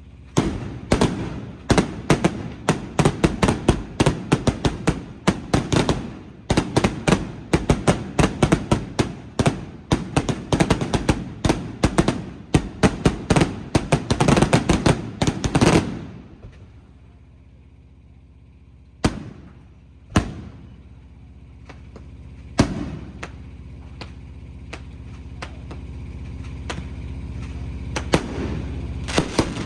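Fireworks going off: a rapid barrage of many bangs for about fifteen seconds, then a lull broken by a few single bangs, with more bangs starting again near the end.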